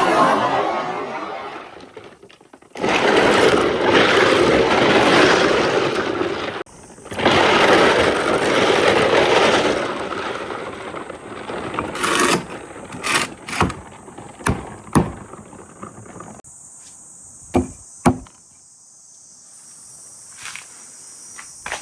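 Marbles rolling along marble-run slopes in two long runs of steady rumbling, followed by a string of separate clacks and knocks as marbles drop and hit one another, thinning out toward the end.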